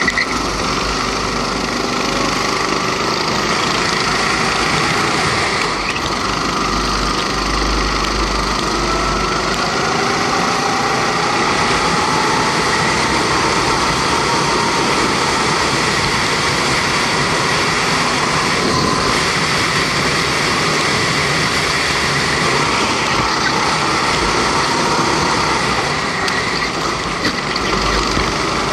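A rental go-kart's 270cc Honda four-stroke engine running hard at race speed, heard onboard, its pitch rising and falling as the throttle is worked through the corners.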